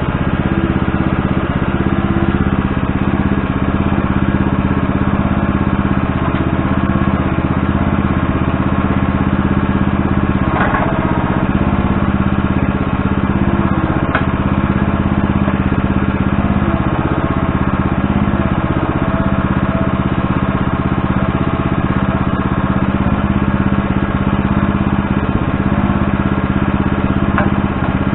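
An engine running steadily at an even speed, with a few faint knocks over it.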